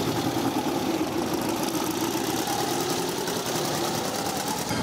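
Custom motorcycle trike's engine running steadily at low revs as the trike rolls slowly past close by.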